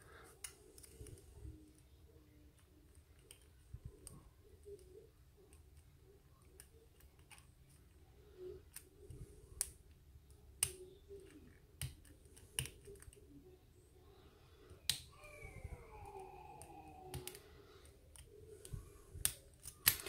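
Faint, irregular little metal clicks and scratches of a hook pick working the pins of a five-pin Master Lock padlock held under a tension wrench.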